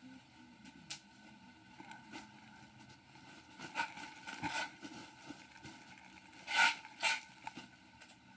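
Rustling and crinkling as packaged cloth hijab inner caps are handled, in scattered bursts, the loudest a little over six seconds in.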